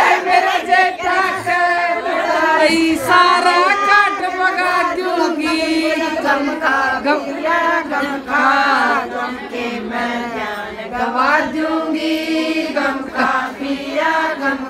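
A group of women singing a Haryanvi folk song together, voices only, in a steady unbroken stream of held sung lines.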